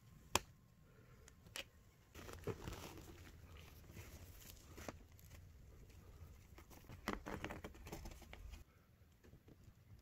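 Faint hand-assembly sounds: a sharp click of a hex key on the exhaust fan's metal mounting screws, then crinkling and rattling as a flexible fabric duct hose is pushed onto the fan's outlet, with a flurry of clicks about seven seconds in.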